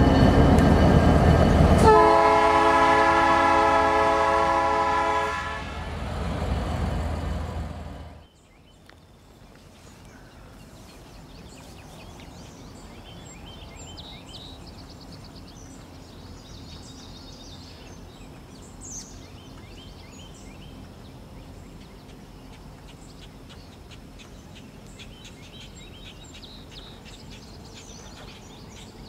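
Diesel locomotive horn sounding a held multi-note chord for about three seconds over the loud rumble of a train at a grade crossing, which then cuts off suddenly about 8 seconds in. After that, quiet open-air ambience: scattered bird chirps and a faint distant rumble from an approaching locomotive.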